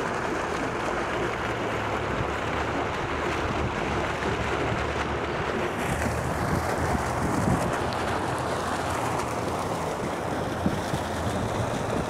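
Fountain jet of water splashing steadily down into a tiled basin, a continuous even rush.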